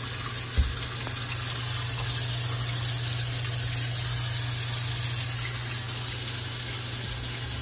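Water running steadily from a kitchen sink tap, over a low steady hum, with a single light knock about half a second in.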